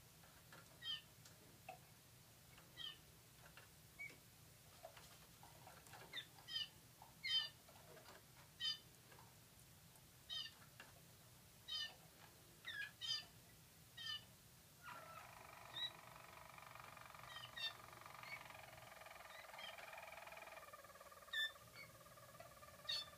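Harzer roller canaries giving short, separate chirped notes every second or two, then, about fifteen seconds in, a low, continuous rolling song sung with steady tones that runs on, shifting slightly a few seconds later.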